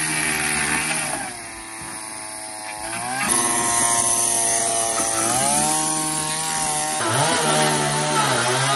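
Power saw cutting through an old wooden roof rafter. The motor's pitch drops and rises several times as the blade bites and frees, with a dip in level about a second in and a rise in pitch about three seconds in.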